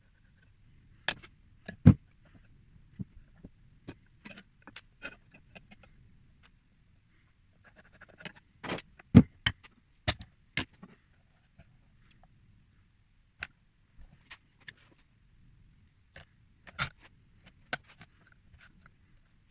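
Irregular sharp taps, knocks and brief scrapes of hand tools working a strip of lead flashing round a form; the loudest knocks fall about two seconds in and about nine seconds in.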